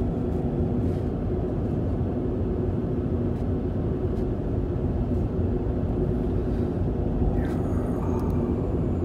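Steady road and engine noise inside a moving car's cabin at expressway speed: an even low rumble with a faint hum.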